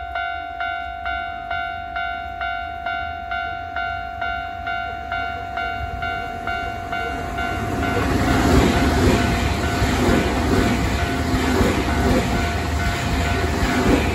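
Japanese railway level-crossing bell ringing steadily at a little under three strikes a second. From about seven seconds in, a Nankai Koya Line electric train passes close by, and its running noise and wheel clatter become the loudest sound while the bell keeps ringing beneath it.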